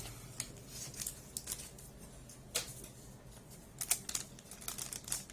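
Trading cards being handled and slid against one another: irregular light clicks and rustles, a few sharper ones near the middle.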